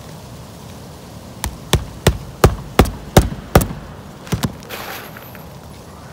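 Claw hammer driving roofing nails into asphalt ridge cap shingles. A run of seven sharp strikes, nearly three a second, then a pause and two quick strikes close together, followed by a brief rustle.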